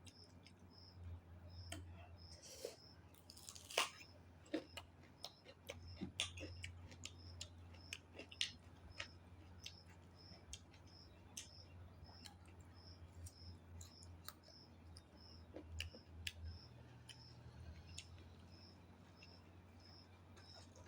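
Faint close-up chewing of a meal, with soft mouth and crunch noises and scattered sharp clicks. A faint high chirp repeats evenly about one and a half times a second, over a low steady hum.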